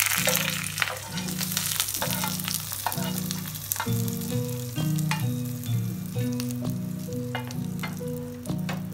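Hot oil tempering of dried red chillies and green chillies sizzling and crackling in a pan, stirred with a slotted spatula, then poured sizzling over yogurt-soaked vadas. The sizzle is loudest at the start, with scattered sharp crackles after. Background music with steady low notes plays under it.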